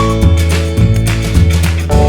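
Background music: an upbeat instrumental with a steady bass beat and plucked strings.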